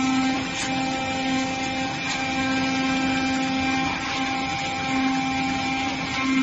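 CNC oscillating-knife cutting machine cutting cardboard: a low buzz that breaks off briefly every second or two, over a steady mechanical whine.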